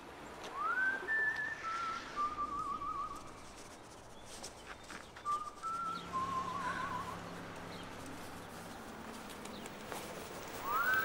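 A whistled tune in short phrases: a rising note, a couple of held notes, then a fast wavering trill. It comes three times, the last starting near the end.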